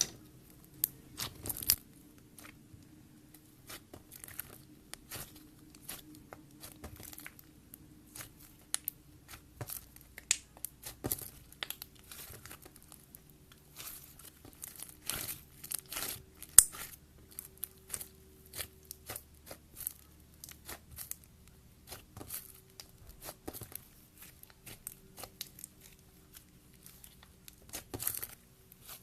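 Slime being squished and stretched by hand: an irregular run of sharp crackles and pops.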